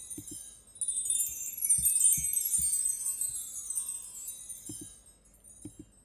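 A sampled chime tree (GarageBand Orchestral Kit) sounds a shimmering cascade of small bar chimes that starts about a second in and fades away, as a newly entered note is previewed. Soft clicks, several in quick pairs, come from the mouse.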